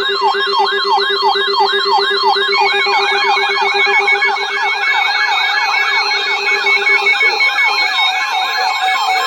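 Electronic emergency-alert siren tone: a rapid yelping pattern of falling sweeps, about two or three a second, over a low buzzing tone. A second overlapping sweep and a beeping tone join about two and a half seconds in, and the low buzz stops about seven seconds in.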